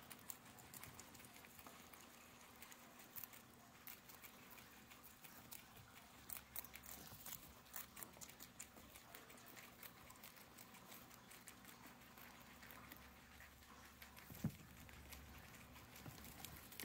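Guinea pigs chewing hay and fresh greens and rustling through the hay: faint, rapid crunching clicks, with one soft thump near the end.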